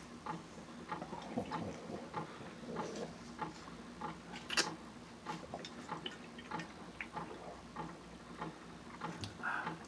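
Steady, even ticking, a little under three ticks a second, over a faint low hum.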